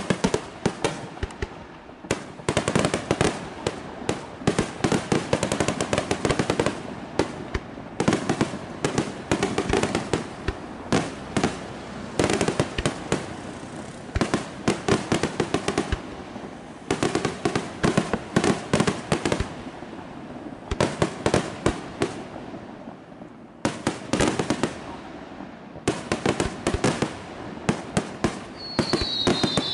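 Aerial fireworks display: rapid volleys of sharp bangs and dense crackling from bursting shells, in clusters with brief lulls between them. A high falling whistle starts near the end.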